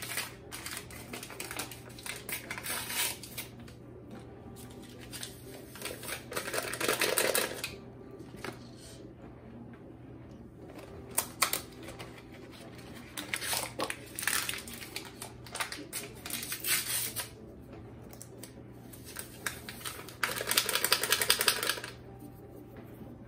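Pudding-mix boxes and their paper inner packets being opened, torn and shaken out, with dry powder poured into a glass bowl: crinkling and rustling with small clicks, loudest about seven seconds in and again near the end. A low steady hum from a running dishwasher sits underneath.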